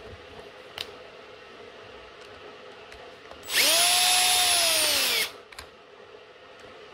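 Power drill driving a screw into a plastic battery-pack casing: one run of a little under two seconds, its motor whine rising as it spins up and falling as it stops. A small click comes about a second in, and a few more come just after the drill stops.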